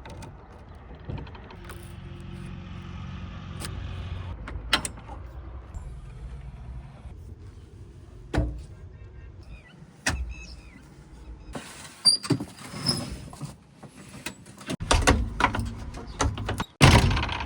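Diesel engine of an earthmoving machine running, with a steady low drone and several sharp metallic knocks. In the last few seconds it gives way to louder rough scraping and clattering with many knocks.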